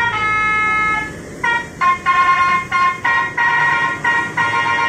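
Basuri musical horn fitted to a Honda ADV 150 scooter, an electronic horn module sounding through a horn speaker, playing a tune. A long held note comes first, then a quick run of short notes.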